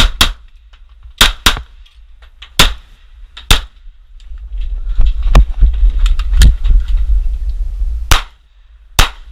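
Glock 19 9mm pistol firing about nine shots, in singles and quick pairs, with a low rumble between them.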